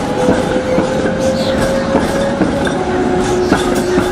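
Passing tram with a steady whine that rises slightly, then steps down in pitch about two-thirds of the way through, and its wheels clacking irregularly over rail joints.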